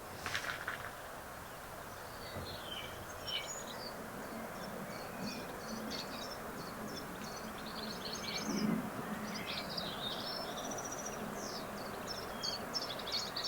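Small birds chirping and singing in many short calls over a steady background rush.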